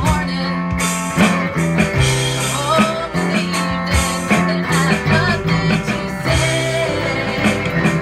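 Live band music in a bluesy rock style: a semi-hollow electric guitar and a strummed acoustic guitar over a steady bass line, with a woman singing.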